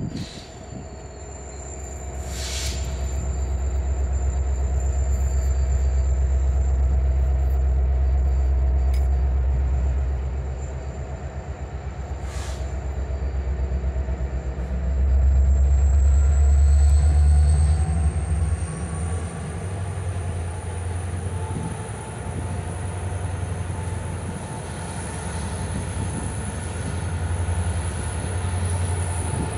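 Norfolk Southern diesel freight locomotives rumbling as they roll slowly closer, the engine sound swelling about halfway through. A thin, high, steady wheel squeal runs over it and climbs slightly in pitch midway, with a couple of sharp knocks in the first half.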